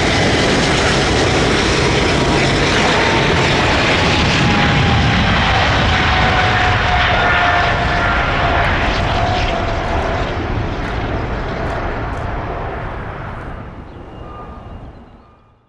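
Boeing 777-300ER's twin GE90-115B turbofans at takeoff thrust: a loud, steady jet roar with a whine that slides down in pitch as the jet goes by and climbs away, fading out over the last few seconds.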